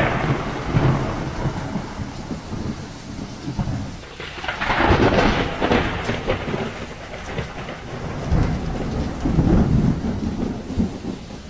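Heavy rain with rolling thunder: a continuous wash of rain under deep rumbles that swell loudest about four to six seconds in and again near nine seconds, easing off toward the end.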